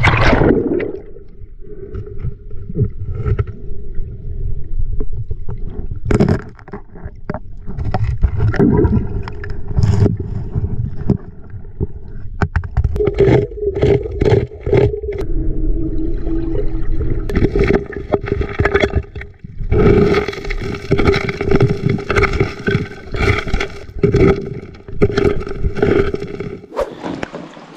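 Rock and gravel scraped and knocked while digging into riverside bedrock to test it for gold, with river water running.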